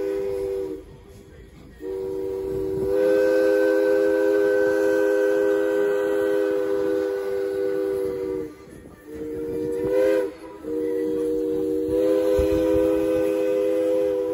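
Steam locomotive's chime whistle sounding a steady chord of three notes in long blasts, with short breaks just under a second in, about eight and a half seconds in, and briefly about ten and a half seconds in.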